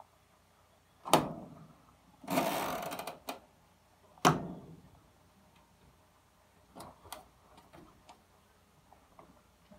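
Kenmore top-load washer's cycle timer dial being handled and turned: two sharp knocks, a short rasping ratchet about two seconds in, then scattered faint clicks.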